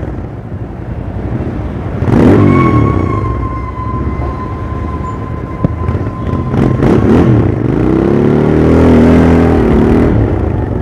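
Royal Enfield Interceptor 650's parallel-twin engine and exhaust on the move, revved in short throttle blips about two seconds in and twice in quick succession around seven seconds, then a longer swell in revs that rises and falls near the end.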